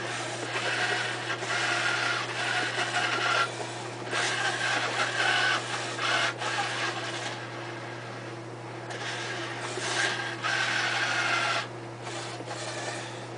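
Harmonic-drive joint motors in a humanoid robot's left arm whirring in several stop-start bursts of a few seconds each as the shoulder and elbow joints move, over a steady low electrical hum.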